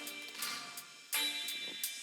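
Background music: pitched instrumental chords, with a new note struck about a second in.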